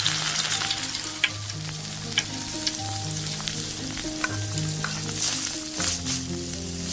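Hot oil sizzling in a miniature frying pan, with a few light clicks.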